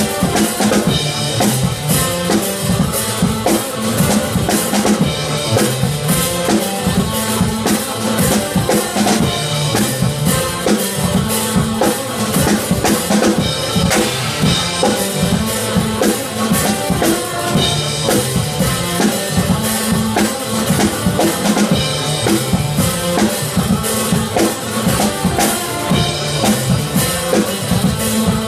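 Acoustic drum kit played continuously in busy funk-style chops, with fast snare, bass drum and cymbal hits, over a backing track whose bass line moves underneath.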